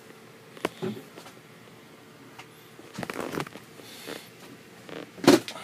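A few scattered soft knocks and rustles in a small furnished cabin, the loudest about five seconds in.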